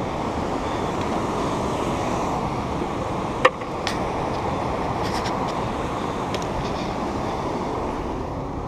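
Steady, muffled rushing of ocean surf along a lava-rock shoreline, with a single sharp click about three and a half seconds in.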